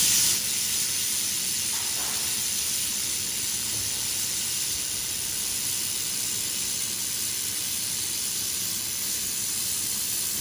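1500 W handheld fiber laser welder with wire feed welding a seam between two steel plates: a steady hiss.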